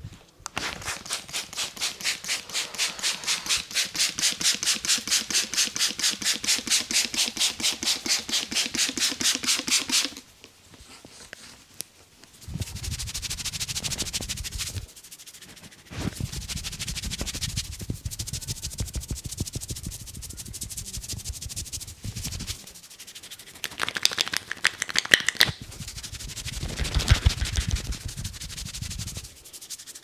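Hands massaging a head: a fast, even run of cupped-hand taps on the scalp for about ten seconds, then, after a pause, long stretches of palms rubbing over hair and skin, with a few louder slaps near the end.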